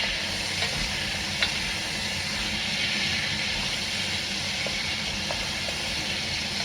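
Bone-in chicken legs searing in hot oil in a Dutch oven: a steady sizzle with a few small pops of spattering fat.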